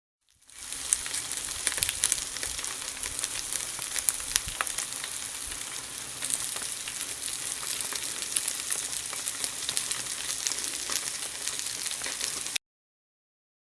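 Food sizzling on a charcoal grill: a steady hiss with frequent small crackles and pops. It fades in at the start and cuts off suddenly near the end.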